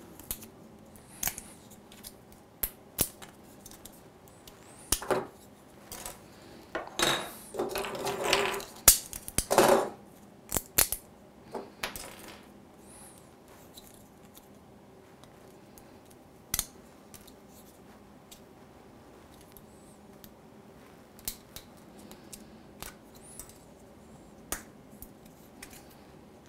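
Small clicks and snaps of hard 3D-printed plastic parts being handled, with support material picked and broken off by hand. The clicks come thickest in the first half, with a few longer scraping sounds between about 7 and 10 seconds in, and then grow sparse.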